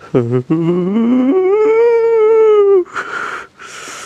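A loud, long howl that starts low, rises in pitch over about a second, then holds steady before breaking off near three seconds in.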